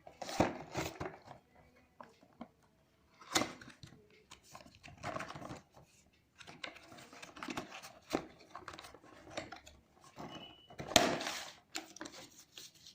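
Product packaging being handled and opened: irregular bursts of rustling and crinkling with sharp clicks and taps, the loudest a little past a second in, around three and a half seconds in, and around eleven seconds in.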